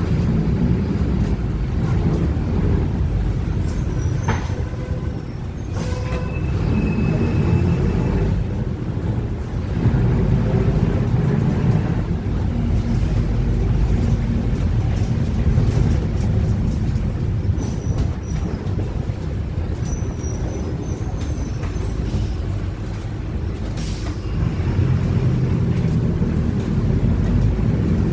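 Cabin sound of a Mercedes-Benz OF-1721 city bus on the move: a steady drone of engine and driveline, with the differential growling, swelling and easing as the bus speeds up and slows. A few sharp knocks and faint squeaks from the body cut in over it.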